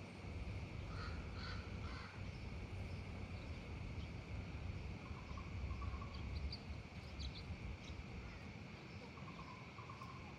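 Outdoor neighborhood ambience: a faint low rumble under a steady high insect drone. Short distant bird calls come three in quick succession about a second in, then a few more later, with a last pair near the end.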